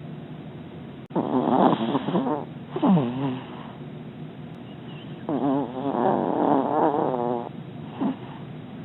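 Sleeping puppy snoring: a run of pitched, wavering snores, two of them about a second long, then a longer one of about two seconds with a rapid flutter, and a short one near the end.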